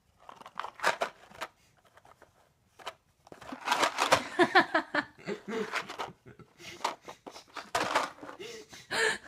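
A person laughing and making wordless voice sounds in bursts with pauses, loudest from about three and a half seconds in.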